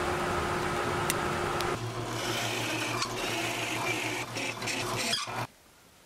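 Woodworking power tool motor running steadily, with a change in its hum about two seconds in and a few clicks, then cutting off abruptly near the end.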